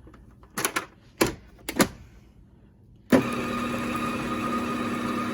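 A few light knocks, then about three seconds in an electric kitchen mixer switches on and runs at a steady speed, mixing flour into a thick batter.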